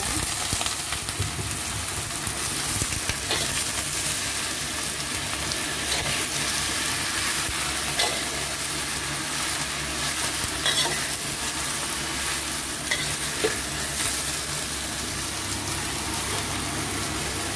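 Chayote shoots sizzling as they are stir-fried in hot oil in a wok, with a few scattered clicks and scrapes of the spatula against the pan.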